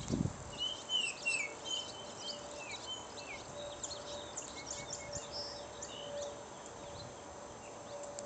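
Baltimore oriole singing a run of clear, whistled notes, most of them in the first few seconds, with a few shorter whistles later; other small birds chirp and twitter at a higher pitch throughout.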